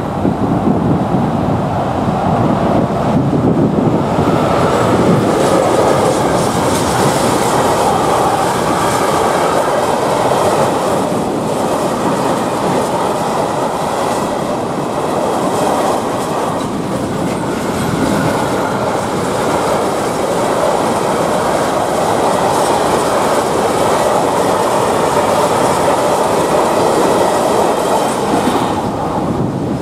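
Freight train of open hopper wagons rolling past close by: a steady rumble with wheels clattering over rail joints. The noise drops off sharply near the end as the last wagon goes by.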